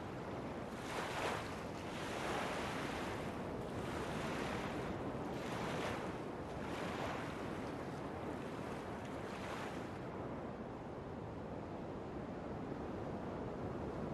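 Harbour water lapping and splashing over a steady rush of wind-like noise, with irregular swells of splashing for the first ten seconds that then give way to a duller, steadier wash.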